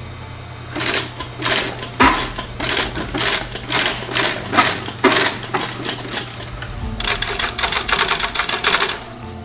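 Industrial leather sewing machine stitching baseball-glove leather in short bursts of rapid needle strokes, with a steady motor hum between runs. Near the end it sews one longer, continuous run.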